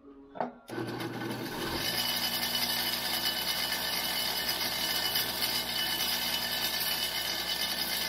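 Motor-driven wire wheel switched on about a second in, spinning up to speed and then running steadily while a freshly drilled steel pin is cleaned of burrs and metal shavings on it.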